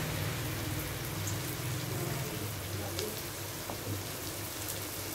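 Chopped small bitter gourd sizzling softly in a pan over a low flame, an even hiss with a few faint crackles, while a wooden spatula stirs through the vegetables. A low steady hum runs underneath.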